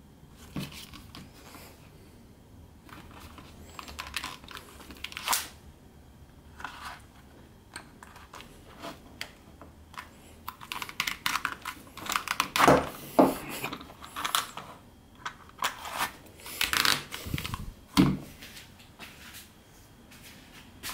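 Irregular clicks, taps and rustling of leather and small tools being handled, busier and louder in the second half.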